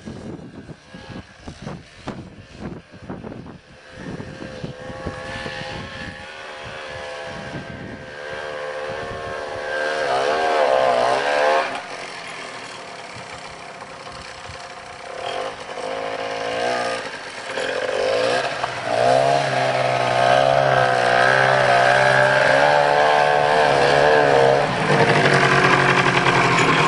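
Rokon two-wheel-drive motorcycle's engine running and being revved as the bike rides through snow. Its pitch rises and falls, and it grows louder as the bike comes close, loudest in the second half.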